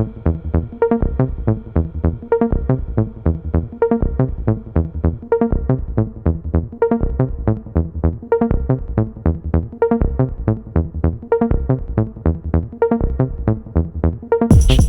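Electronic background music with a steady pulsing beat; it gets louder and fuller near the end.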